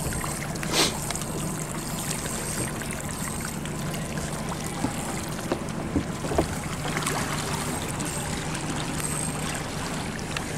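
Fishing boat's engine running steadily at trolling speed, with water washing along the hull. A knock sounds about a second in, and a few lighter ones come later.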